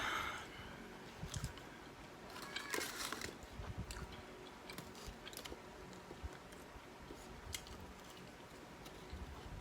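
Close-up chewing and biting of fried chicken wings: faint wet chewing with scattered small crunches and mouth clicks, a denser crunchy bite about three seconds in.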